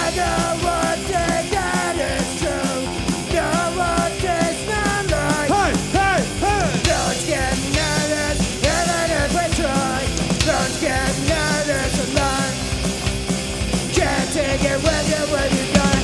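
Rock band playing live: distorted electric guitars, bass guitar and drums keeping a steady beat, with a melodic line of bending notes over the top.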